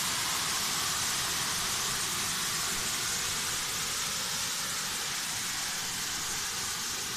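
Steady hiss of water from a hose-reel irrigator's rain gun spraying out of control onto maize plants: the gun cart has tipped over.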